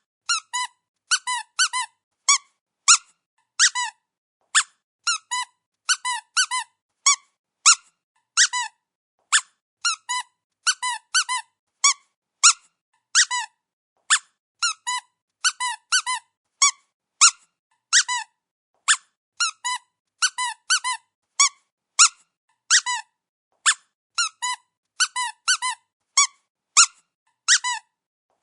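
Dog's squeaky toy squeezed again and again: short high squeaks, some single and some in quick runs of two to four, with brief silences between.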